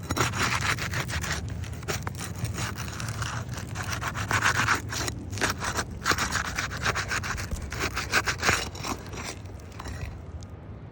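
A tool scraping and rubbing in quick, irregular strokes under asphalt roof shingles, working to break their seal. It eases off near the end.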